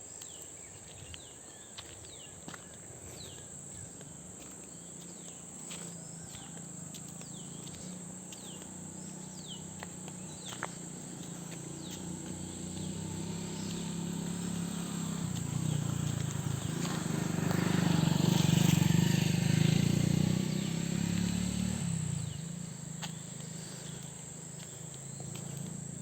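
Steady high-pitched drone of insects such as crickets, with short falling bird chirps in the first half. A low rumble swells in the middle, is loudest about three-quarters of the way through, then fades away.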